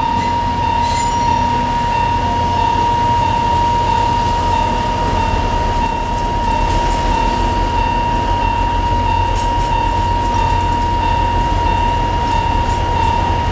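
A level crossing warning bell rings continuously in an even, repeating electronic tone. Under it runs the steady low rumble of a narrow-gauge Alishan Forest Railway diesel locomotive.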